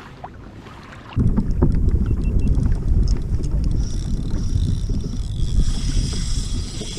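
Wind buffeting the microphone on open sea, coming in abruptly about a second in as a loud, low rumble, with scattered light clicks over it.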